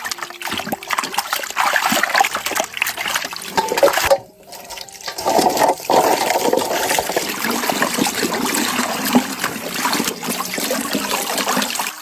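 Water running and splashing, broken off briefly about four seconds in.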